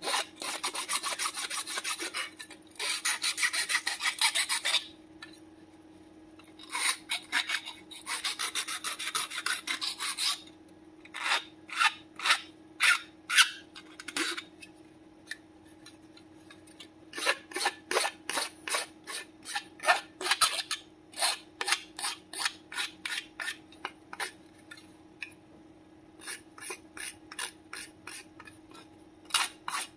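Flat metal hand file rasping across the edges of a red 3D-printed plastic part, a rough filing of the print. The first ten seconds hold three runs of quick back-and-forth strokes with short pauses between them; after that come slower single strokes, about two to three a second.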